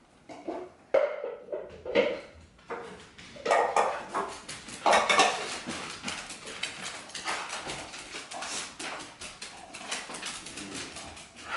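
Dogs' claws clicking and skittering on a hardwood floor as they crowd around at feeding time, with dry dog food rattling in a bowl and a few short whines near the start.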